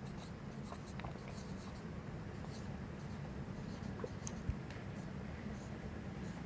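Marker pen writing on a whiteboard: faint, scattered squeaks and taps of the felt tip on the board, over a steady low hum.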